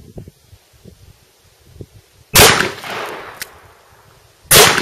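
Two gunshots from a .357 Magnum revolver, about two seconds apart: the first about halfway in and the second near the end, each followed by an echo that dies away over about a second.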